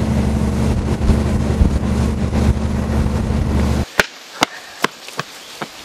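Train carriage running: a steady rumble with a low hum that cuts off suddenly about four seconds in. Then footsteps on concrete steps, sharp and about two a second.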